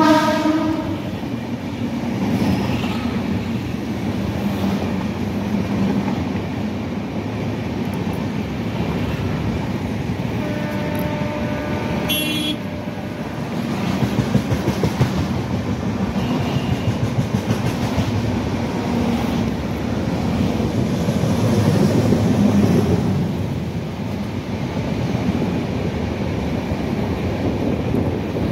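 An Indian Railways passenger train's coaches running past below, with a steady rumble of wheels on rails. The electric locomotive's horn trails off in the first second, a shorter horn-like tone sounds about halfway through, and a few seconds later the wheels clatter rhythmically over rail joints.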